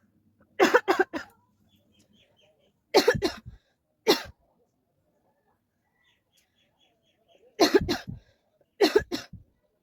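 A woman coughing in five short bouts of one to three hard coughs each, with pauses of a second or more between bouts.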